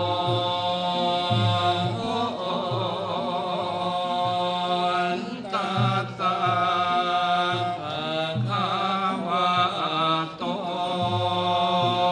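Buddhist monks chanting together: a slow, melodic chant with wavering, held notes over a recurring low beat.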